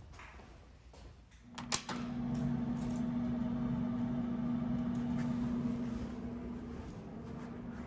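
A sharp click, then from about a second and a half in a steady electrical hum from the fire alarm speakers, driven by the analog AA-120 amplifier.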